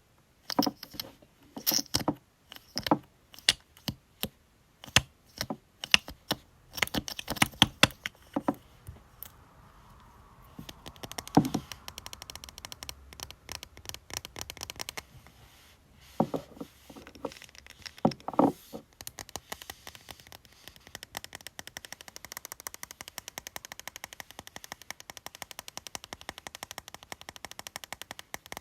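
Fingernails tapping on makeup cosmetics: separate sharp taps at first, then from about ten seconds in a fast, continuous run of rapid nail taps, with a few louder single taps.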